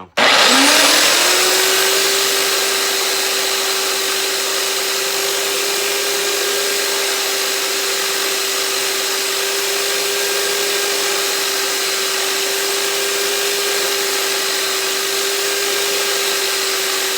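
Electric grinder starting up, its motor whine rising for about a second, then running steadily with a loud hiss while the spear tip is sharpened.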